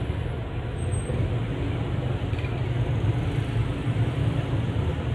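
Steady low mechanical hum under a constant rushing noise, with no breaks.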